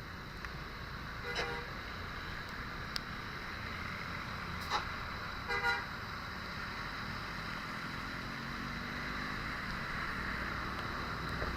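Steady road-traffic rumble with two short blasts of a bus's multi-tone 'telolet' horn: one about a second and a half in, and a chopped run of quick notes a little before the middle.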